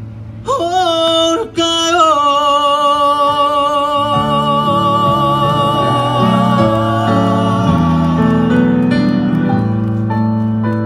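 Male ballad singer's amplified voice over a piano-led backing track: a short sung phrase, then one long held note with vibrato lasting about six seconds. After that the backing track plays on alone, closing the song.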